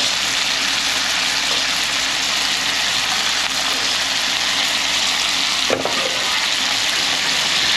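Shrimp frying in a pot with a steady sizzle, and one short knock a little past two-thirds of the way through.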